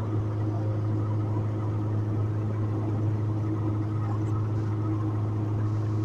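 Honda K24A2 2.4-litre inline-four engine in a Civic EK hatchback, running with a steady drone at constant revs, heard from inside the cabin.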